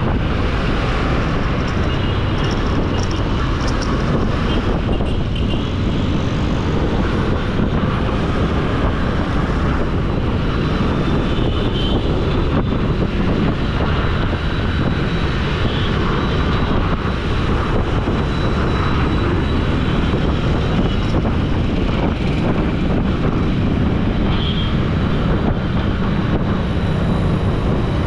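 Steady road noise of a vehicle moving through city traffic: engine, tyres and wind on the camera microphone, one even drone throughout.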